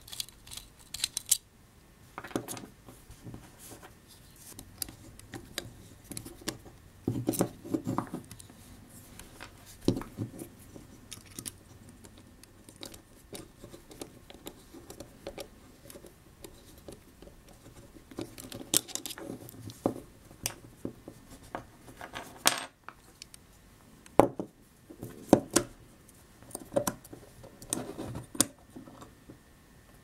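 Small metal clicks, taps and light scrapes as a stainless steel folding knife is taken apart with a Torx bit driver: the bit seating in and turning the tiny screws, loose screws set down on a wooden bench, and steel handle parts knocking together. The sounds come irregularly, with a few sharper clicks in the second half.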